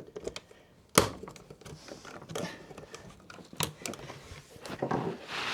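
Plastic clicks and handling noise as an electrical socket's front cover is pushed back on: one sharp snap about a second in, then several lighter clicks and some rustling.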